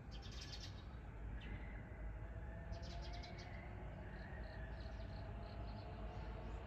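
Small birds calling: a quick high trill at the start, another short trill about three seconds in, then a run of short high notes, over faint steady background noise.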